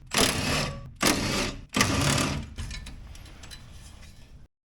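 Cordless drill-driver run in three short bursts of under a second each, undoing fasteners, followed by a fainter run that cuts off sharply near the end.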